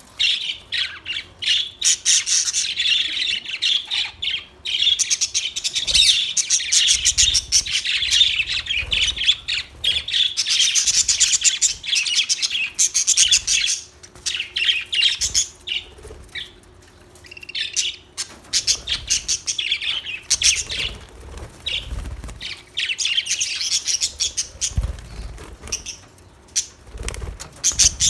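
Budgerigars chattering and chirping, a fast, busy warble with squawks, in long runs broken by short pauses.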